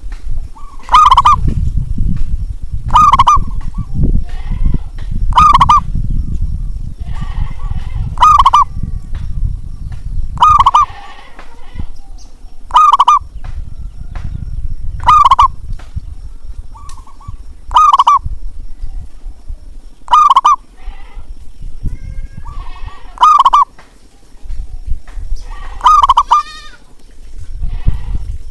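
Zebra dove (perkutut) cooing its rapid, rippling song phrases, one short call about every two and a half seconds, over an intermittent low rumble.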